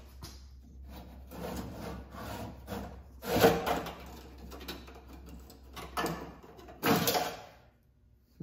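Old glued-in window run channel being pulled out of a 1953 Ford F-100 door's window frame: dry scraping and rubbing as the strip drags free, with two louder scrapes about three and a half and seven seconds in.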